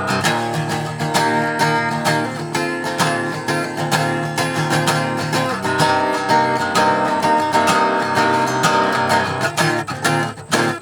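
Acoustic guitar strummed in a steady rhythm, full chords ringing; near the end the strumming thins to a few separate strokes.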